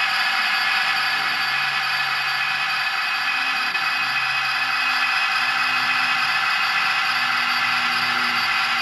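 Hornby OO gauge Class 67 model locomotive running along the track. Its Zimo sound decoder plays a steady GM-EMD diesel engine sound through the model's small speaker, over the running noise of its wheels and motor.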